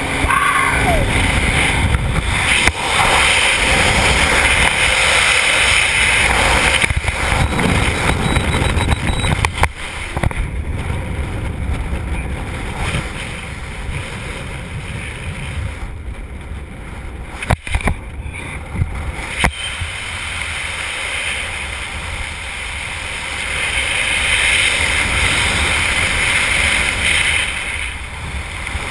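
Wind rushing over a skydiver's camera microphone: a loud, dense rush in free fall after leaving the helicopter, cut down sharply with a snap about ten seconds in as the parachute opens. Under the canopy the wind is calmer, with a few sharp cracks of fabric midway, and it swells again near the end as the canopy is steered into a turn.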